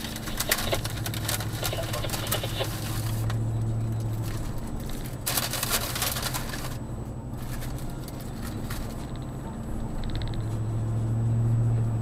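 Car cabin noise while driving: a steady low engine and road hum that swells and fades, with bursts of crackling in the first few seconds and again briefly around the middle.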